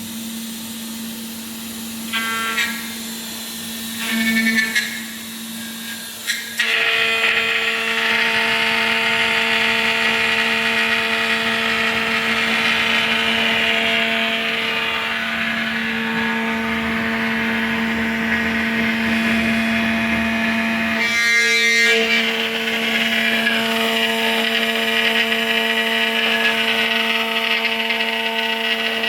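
CNC machining center's spindle running with a steady hum, two short mechanical sounds in the first few seconds, then from about six seconds in its cutter milling a PVC profile: a loud, dense cutting noise with a high whine, briefly changing about 22 seconds in. The operator finds the cutter not sharp.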